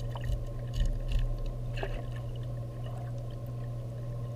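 Underwater sound in a large aquarium: a steady low hum with faint water bubbling and a scatter of small clicks, busiest in the first two seconds, muffled as heard through an underwater camera.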